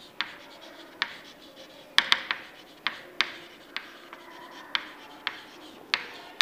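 Chalk writing on a chalkboard: irregular sharp taps as the chalk strikes the board, with light scratching between strokes.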